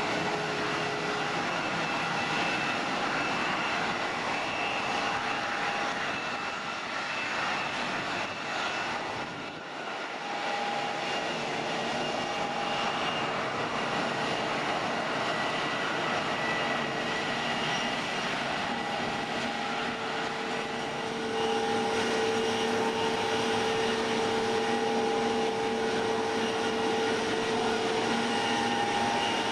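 Jet engines of Airbus A320-family airliners at taxi power: a steady whine of several held tones over a hiss. It dips briefly about a third of the way in and grows louder about two-thirds of the way through.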